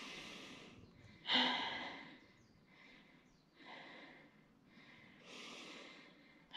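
Heavy, laboured breathing of a hiker winded from a long uphill climb. There are four deep, noisy breaths about a second and a half apart; the second is the loudest, with a bit of voice in it.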